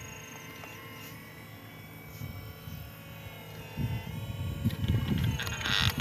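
Small electric motors of an RC excavator whining steadily as it dumps its load and swings round. About four seconds in, the bucket starts scraping and crunching into dry soil, louder than the motor whine.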